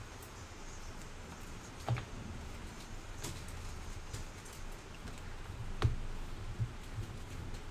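Baseball trading cards handled over a table: a few light taps and clicks as the cards are flipped through and a stack is set down, the loudest tap about six seconds in.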